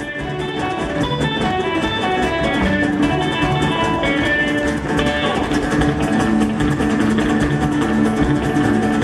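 Rockabilly band playing live, with a guitar picking quick runs of notes over a steady bass; the music fades up over the first second.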